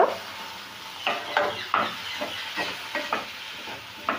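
Wooden spatula stirring and scraping diced potatoes and tomatoes around a non-stick pan, in irregular strokes a few times a second, over a light sizzle of the frying vegetables.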